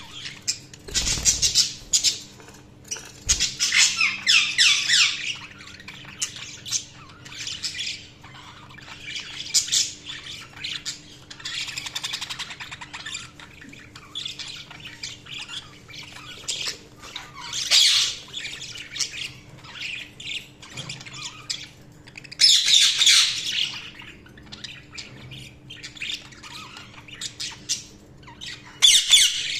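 Budgerigars chirping, warbling and squawking in irregular bursts, with louder outbursts every few seconds. A faint steady hum runs underneath.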